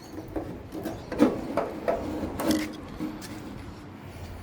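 Irregular light metal clunks and rattles as the fuel sender unit is worked out of a car's fuel tank, its locking ring just knocked loose; the loudest knocks come about a second in and again near two and a half seconds.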